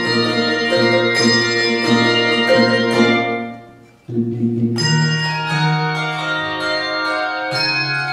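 Handbell choir ringing full chords of many bells. About three seconds in the ringing dies away to a brief near-pause, then low bass bells strike and the full choir comes back in.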